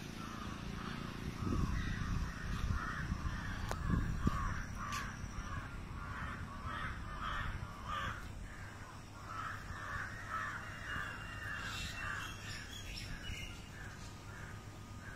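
Crows cawing over and over, two or three calls a second, thinning out after about twelve seconds, over a steady low rumble with a few sharp knocks in the first four seconds.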